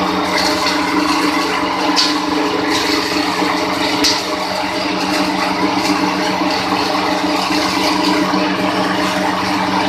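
Coconut crusher machine's single-phase electric motor running at a steady speed, giving a constant hum with a few light ticks.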